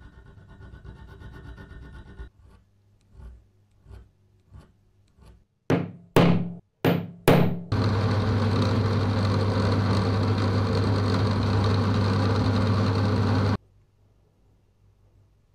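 A fine hand file rasping across a small copper bracket clamped in a bench vise, breaking into separate strokes with the last few much louder. Then a bench drill press runs with a steady hum for about six seconds, drilling a small hole in the copper part, and cuts off abruptly.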